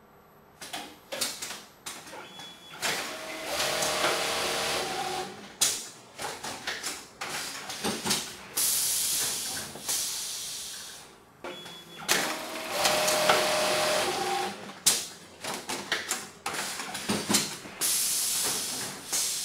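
BASS 3200 automatic zipper-sewing unit working through two machine cycles: rapid clacks of pneumatic actuators, long hissing blasts of compressed air, and short runs of the sewing head with a steady whine.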